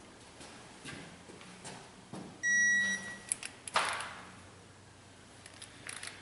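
Electronic torque-angle wrench giving one short steady beep about two and a half seconds in, as the head bolt reaches its 90-degree turn. A few faint clicks come before it, and a loud clatter of the wrench follows about a second later.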